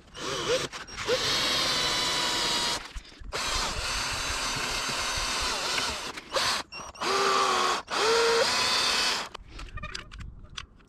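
Power drill boring holes through a plywood sheet, running in four bursts of one to three seconds with short pauses between. A few light clicks follow near the end.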